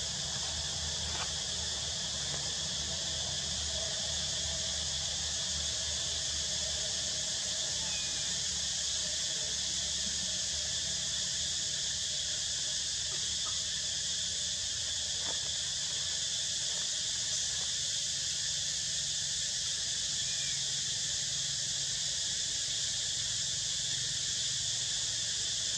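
Steady, high-pitched drone of insects such as cicadas or crickets, even throughout, over a low steady rumble.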